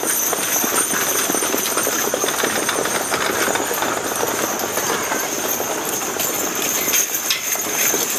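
Hoofbeats of a six-horse team of draft horses trotting on a dirt track, mixed with the rolling rumble of the heavy wagon they pull. The clatter is dense and continuous.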